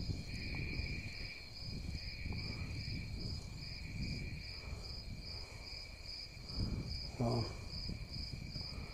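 Steady high chirping of insects from the shore, pulsing about two to three times a second, over a low uneven wash of wind and water lapping around a kayak on a lake.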